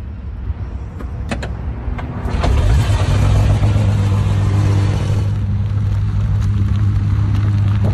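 A couple of clicks, then about two seconds in the Czinger 21C's twin-turbo V8 starts up with a quick rev and settles into a steady, loud idle.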